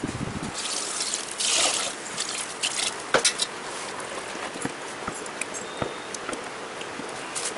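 A ladle stirring and sloshing liquid chutney in a bucket, with a louder splash about a second and a half in and scattered light clinks of steel utensils.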